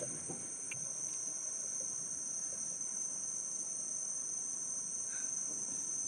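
A steady, high-pitched chorus of rainforest insects: two even, unbroken shrill tones over a faint hiss.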